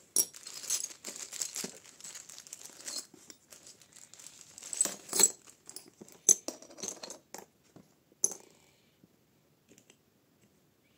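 Thin plastic zip-lock bag crinkling as a hand rummages in it, followed by several sharp clicks of small metal palette pans being set down and knocking against each other.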